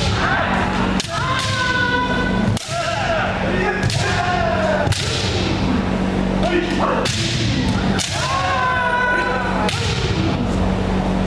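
Bamboo shinai cracking against kendo armour, about ten sharp strikes spread irregularly, amid long drawn-out kiai shouts from several fencers.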